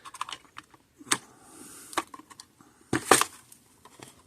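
Small handling noises as a wire is worked into place inside an electric fence charger: a scatter of sharp clicks and taps, the loudest pair about three seconds in.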